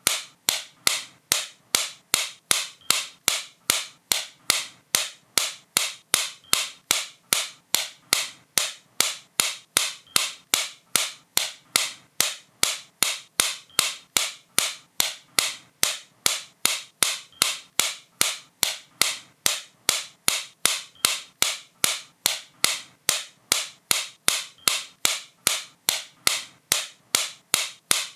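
Sharp, bright clicks repeated at an even pace, about two and a half a second, each dying away quickly.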